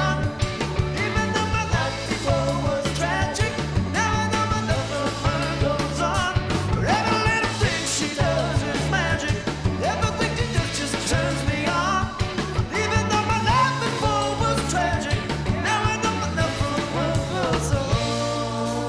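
Live rock band playing a song: electric guitar, bass guitar and drum kit with a male lead vocal over a steady beat.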